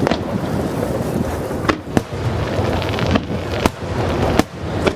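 Aerial fireworks bursting: a string of sharp bangs, about one a second, over a continuous rumbling din of shell explosions, with a brief fizzing crackle around the middle.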